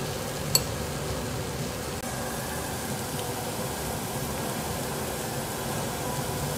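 Steady hiss and low hum at a tabletop gas grill cooking prawns and scallops, with one sharp click of metal tongs about half a second in.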